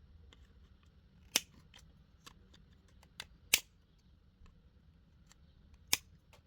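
Sharp clicks and snaps of small parts or hand tools being handled at a workbench: three loud ones, about a second and a half, three and a half and six seconds in, among fainter ticks.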